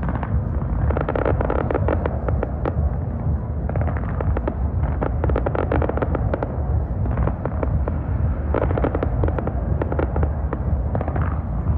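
Fireworks display: aerial shells bursting in a steady barrage, with dense, rapid pops and crackling from the gold bursts and no let-up.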